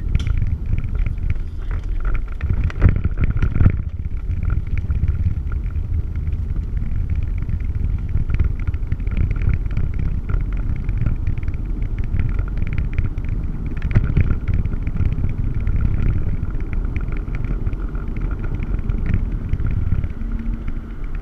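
Inside a vehicle driving on a dirt road: steady engine and road rumble with constant small rattles and crunches from the rough surface, and louder jolts about three seconds in and again near the middle.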